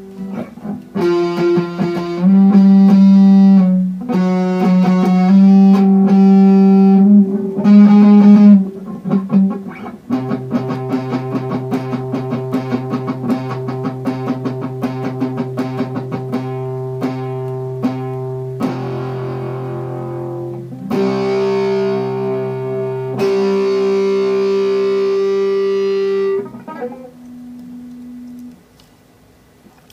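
Electric guitar played through a breadboarded Badass Distortion circuit with diode clipping: sustained, distorted chords and held notes with picked notes over them, dying away near the end.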